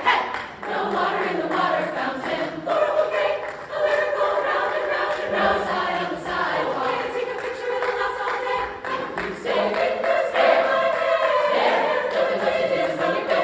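Women's chorus singing in several parts, with held chords that shift a few times.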